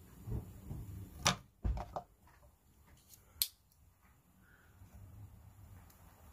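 Utility knife and steel ruler worked on a workbench while scoring a Lexan polycarbonate sheet: light scraping and a few sharp clicks, the two loudest about a second in and about three and a half seconds in.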